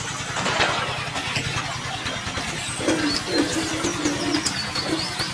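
A small engine idling steadily with a fast, even putter. From about three seconds in, a bird coos a few times and small birds chirp.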